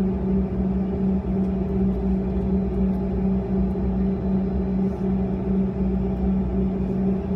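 Cabin noise of a Bombardier CRJ-200 regional jet barely moving on the ground, its two rear-mounted General Electric CF34 turbofans at idle. It is a steady low drone with a strong hum that wavers slightly.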